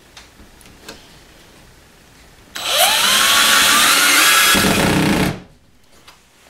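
Power drill spinning up with a rising whine and running for under three seconds while driving a screw into wood. It turns deeper near the end as the screw bites, then stops abruptly.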